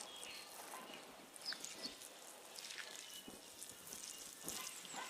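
Quiet outdoor background with a few faint, short, high chirps scattered through it and some soft clicks.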